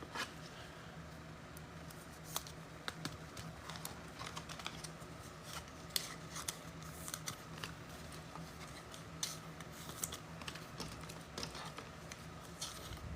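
Faint, scattered light clicks and scrapes of trading cards being handled and sorted by hand, over a steady low hum.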